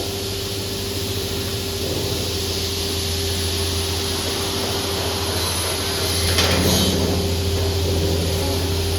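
TS-J39 automatic picture-frame cutting machine running, a steady motor hum and hiss. Around six and a half seconds in comes a short, louder, brighter rasp as the blade cuts through oak moulding.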